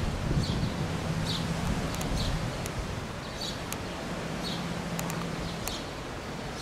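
A bird repeating a short, high, falling call about once a second, over wind noise and a low hum that comes and goes, with a few sharp clicks.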